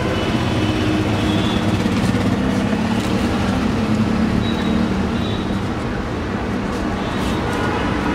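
Steady road traffic noise from passing vehicles, with a low engine drone that holds for the first five seconds or so.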